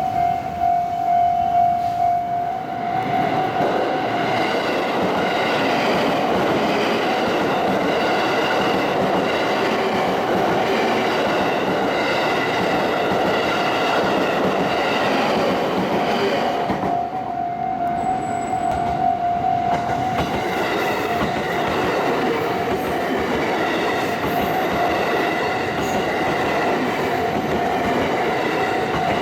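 Japanese level-crossing warning bell ringing, drowned out for about fifteen seconds by a train passing close by over the crossing, then heard again over the continuing train noise.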